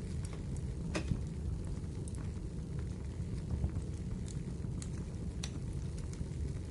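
Wood fire burning in a fireplace: a steady low rumble of flame with scattered sharp crackles and pops, one louder pop about a second in.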